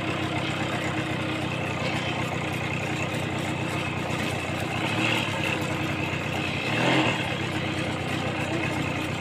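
A motor vehicle's engine running steadily at low speed, with a brief call about seven seconds in.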